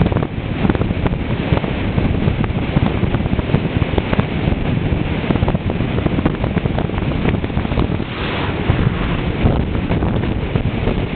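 Loud, steady wind buffeting on the microphone of a camera moving along a road at speed: a dense low rumble with constant gusty flutter.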